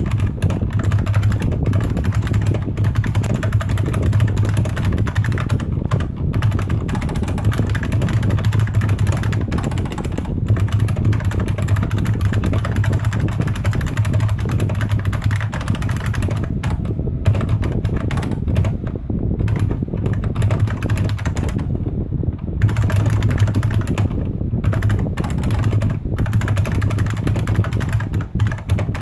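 Fast continuous typing on a Unicomp Ultra Classic buckling-spring keyboard: a dense stream of loud clacking keystrokes with a few brief pauses. A low hum runs underneath.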